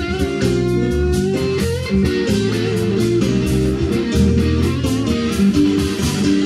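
Live blues-rock band playing an instrumental passage: a solid-body electric guitar being strummed over bass and a steady drum beat.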